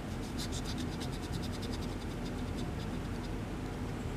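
Steel upholstery needle being pressed into the slightly undersized drilled hole of a poplar dowel handle, giving a rapid train of scratchy ticks, several a second, that fade out about three seconds in as the press fit goes home.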